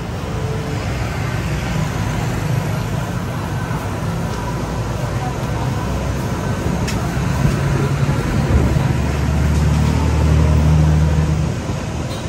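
Busy street traffic with background crowd chatter. A vehicle engine's low rumble grows louder and passes close about two-thirds of the way through, then fades near the end.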